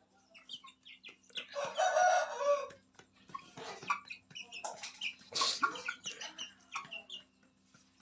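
Chickens calling: a loud crow-like call lasting about a second near the start, then shorter clucks and many brief high peeps from young aseel birds.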